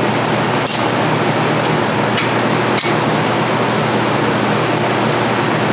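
Steady loud hiss of workshop background noise, with two faint light clicks of metal clutch plates being pressed into place, about a second in and again near three seconds.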